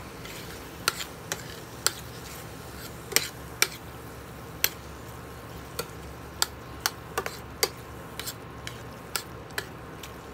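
Metal spoon stirring chopped tomatoes, carrot and onion in a stainless steel frying pan, clinking sharply against the pan at irregular moments, over a steady low sizzle of the frying vegetables.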